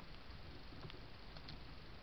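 Faint, scattered ticks of a red squirrel's claws on a fallen log, over a steady background hiss.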